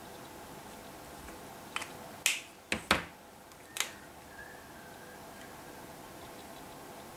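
Copic alcohol markers being handled: a handful of sharp plastic clicks and taps in quick succession, with steady room tone and a faint hum before and after.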